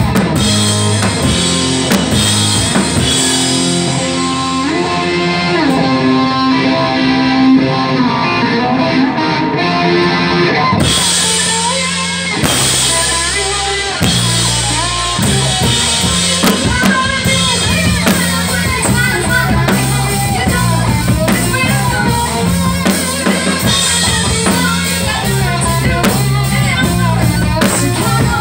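Live rock band playing loudly: a heavy drum-kit beat with electric guitar and bass, the cymbals dropping out for a few seconds in the first half. A woman sings over the band in the second half.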